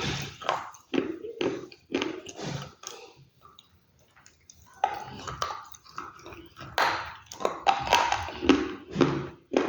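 Close-miked chewing of crunchy food, one crunch after another about twice a second. There is a short pause in the middle, then the crunching resumes more densely.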